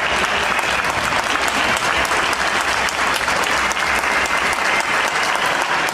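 Football crowd in the stadium stands applauding steadily, a dense mass of clapping.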